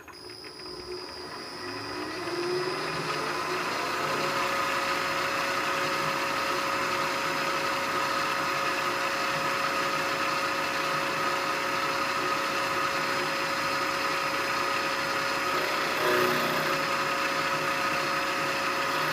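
Vertical milling machine spindle starting up with an end mill in the chuck: its whine rises in pitch over about four seconds, then the machine runs steadily. There is a brief louder patch about sixteen seconds in.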